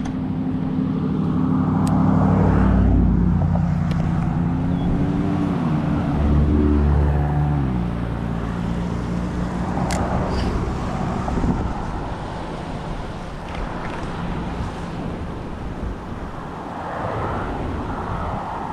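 A motor vehicle's engine running steadily, its pitch shifting about six seconds in, then dropping away about eight seconds in and leaving a steady rush of noise.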